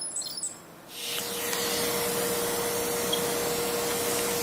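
Dental ultrasonic unit starts about a second in and runs steadily: an even hiss with a low steady hum, as the tip works into the calcified pulp chamber floor.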